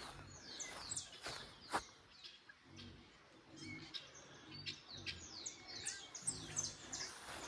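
Birds chirping outdoors: many quick, high calls that each sweep downward in pitch, coming in clusters, with a few soft clicks.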